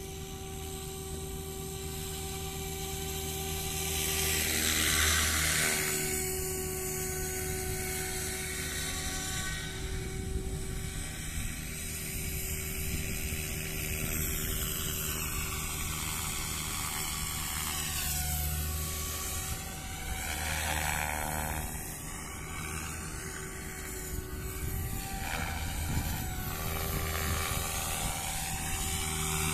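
SAB Goblin Kraken 580 electric RC helicopter in flight: the steady high whine of its electric motor and spinning rotor blades, swelling and fading as it flies nearer and farther, loudest about five seconds in.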